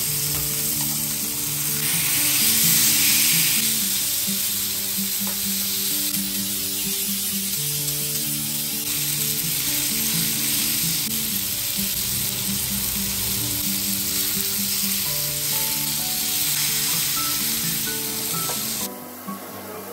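Beef steak searing in a hot cast iron pan, its fat sizzling steadily. The sizzle is loudest about two to four seconds in and falls away sharply near the end.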